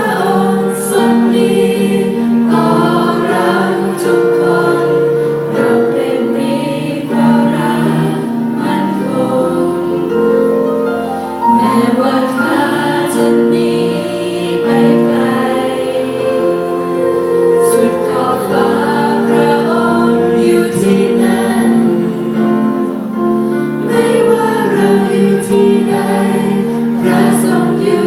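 A youth choir singing in harmony, holding long notes that move in steps.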